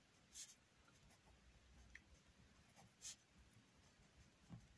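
Faint scratching of a pen writing on paper, in a few short separate strokes.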